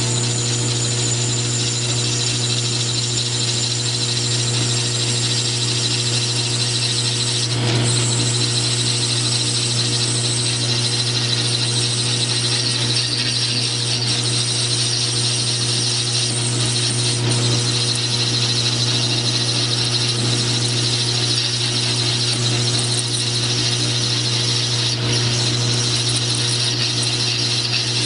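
South Bend metal lathe running steadily with a constant gear hum while a parting tool cuts into the spinning metal workpiece, adding a steady hiss of cutting.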